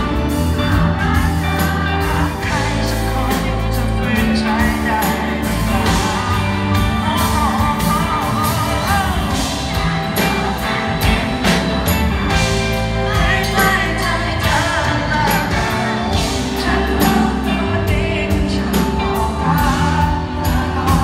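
Live band playing a pop-rock song: a man singing into a microphone over electric guitar, bass guitar, drums and keyboard, amplified through the stage PA.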